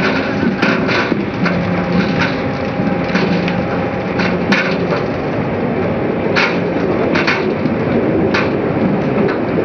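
A load of sugar beets sliding out of a steeply tipped semi-trailer into a receiving pit: a continuous rumble of tumbling roots, with sharper knocks every couple of seconds. Under it runs a steady machine hum.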